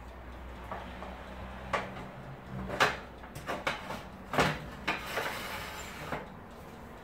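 Wire oven rack loaded with corn cobs being slid into an electric oven: a run of irregular metal clatters and knocks as the rack rides its runners, the two loudest about three and four and a half seconds in, then a short scraping rustle.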